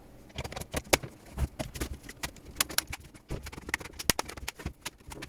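Plastic laptop case being closed: a run of irregular clicks and taps as the HP 17-x's bottom cover is pressed back on and its clips snap into place.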